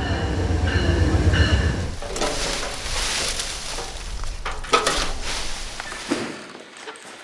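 A train passing: a heavy low rumble with steady high tones over it for the first two seconds, then a noisy rattling clatter that fades away near the end.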